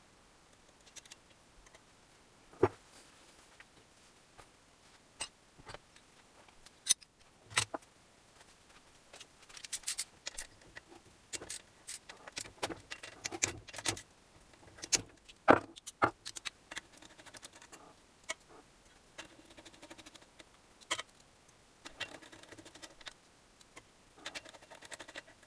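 Metal tools and small engine parts clinking and knocking as an engine is taken apart by hand: scattered sharp clicks with a few louder clanks.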